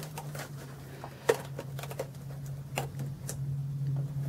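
Light clicks and scuffs of a micro quadcopter's plastic frame and propellers being wiggled out of dense foam packing, one sharper click about a second in. A steady low hum runs underneath.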